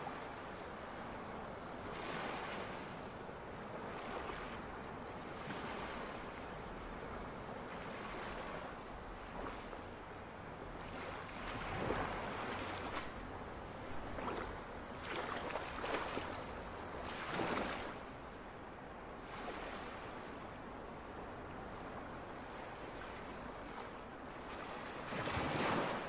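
Ocean surf: waves breaking and washing up a beach in a continuous rush that swells and falls every few seconds, with the strongest surges about halfway through and near the end.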